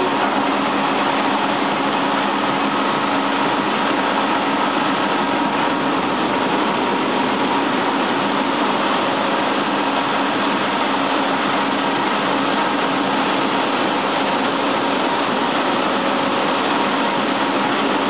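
Buckwheat-processing line machinery running together: a steady, loud industrial din with a faint steady hum in it.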